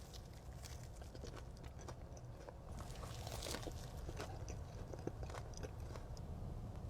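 Close-miked biting and chewing of a Chick-fil-A jalapeño ranch club sandwich, a steady run of small mouth clicks and crackles, busiest about halfway through.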